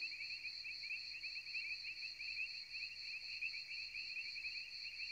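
Crickets chirping steadily in a night-time ambience, a fast, even trill.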